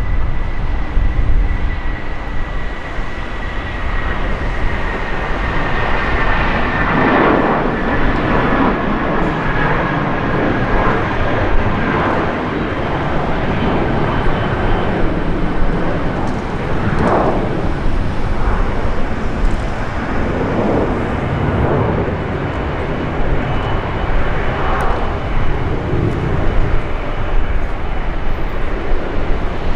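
Airbus A319-112's CFM56 jet engines at takeoff thrust: a steady jet roar with a high whine that slowly drops in pitch over the first dozen seconds as the airliner rolls down the runway and climbs away.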